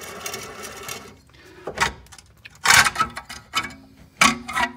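Sharp metallic clanks and clicks, a handful of separate strokes, as the Prius's front wheel hub and its steel flange are turned and shifted by a gloved hand.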